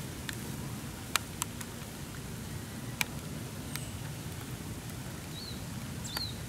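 Light rain falling outdoors: a steady low hiss with a few sharp isolated drop ticks.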